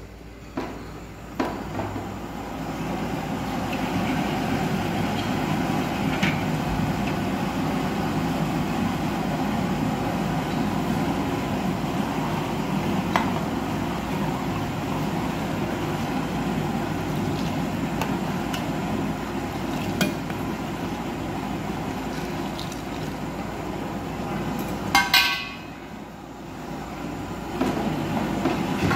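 A pan of spiced milk tea boiling on a gas stove, a steady rushing bubble that builds over the first few seconds, with a few sharp clinks of a metal ladle against the pan. Near the end comes a brief clatter, then the boil dips before rising again.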